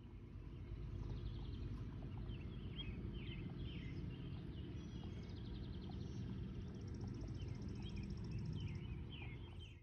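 Outdoor ambience: birds chirping again and again over a steady low rumble, with a high, fast rattling trill from about seven to nine seconds in. It fades in at the start and cuts off at the end.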